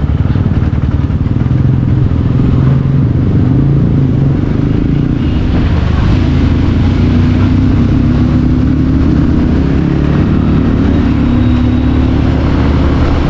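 Bajaj Pulsar 150's single-cylinder engine heard from the saddle, accelerating with its pitch climbing in stretches as it pulls up through the gears, over steady wind and road rush.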